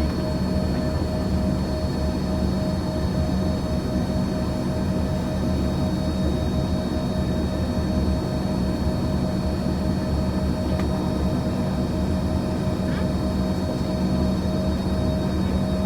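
Jet engines of an American Eagle regional airliner running steadily: a constant drone with steady whine tones, holding the same level without building up.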